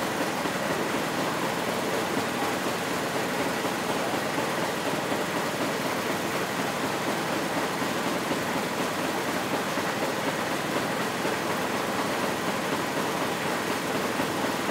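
Abaca twin-spindle decorticating (roller cleaner) machine running steadily, a constant mechanical drone with a faint steady whine, as abaca fibre is stripped against its spinning drum.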